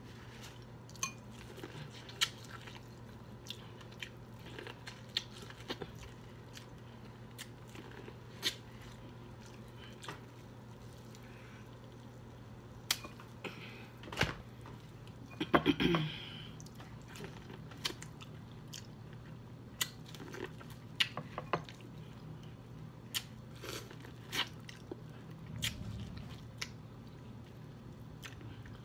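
Close-miked eating of a corn on the cob: scattered short wet mouth clicks, bites and chewing, with one louder burst of handling noise about halfway through.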